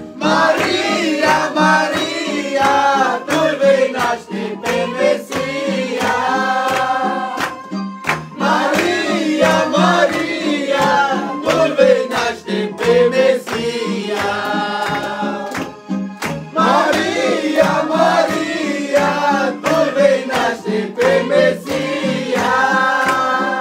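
A group of men and women singing a Romanian Christmas carol together over a steady percussive beat.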